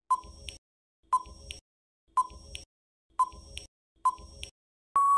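Quiz countdown timer sound effect: five short beeps, one a second, then a longer steady beep near the end as the countdown runs out.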